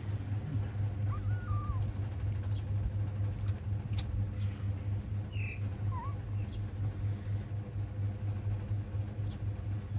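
Kittens giving two short, faint high-pitched squeaks, about a second in and again near the middle, over a steady low hum, with a few faint clicks.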